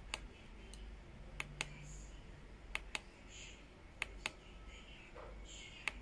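Push buttons on top of a digital alarm clock speaker clicking as a finger presses and releases them, five quick double clicks spaced about a second and a half apart.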